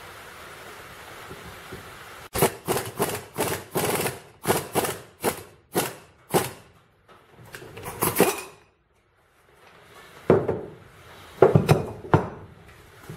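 A quick series of sharp metal knocks and clanks, then a few more after a pause near the end, from starting a U-joint bearing cap into its yoke and setting a C-clamp style press against it on the bench.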